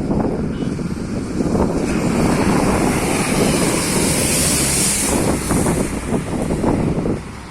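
Rain with wind buffeting the microphone, a continuous rushing noise. A higher hiss builds for a few seconds and then fades away.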